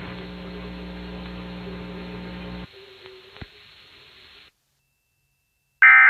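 Broadcast radio audio with a steady electrical hum and hiss after an Emergency Alert System voice message. The hum cuts off abruptly about two and a half seconds in, leaving faint noise with one click and then dead air. Right at the end the first loud, short burst of EAS end-of-message data tones begins.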